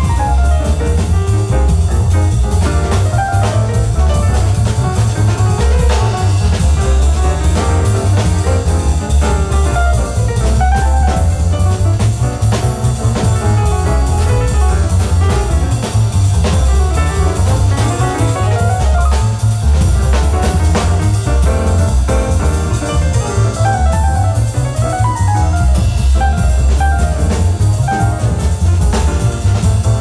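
Live jazz from a quartet of tenor saxophone, piano, double bass and drum kit, with the bass and cymbals running throughout.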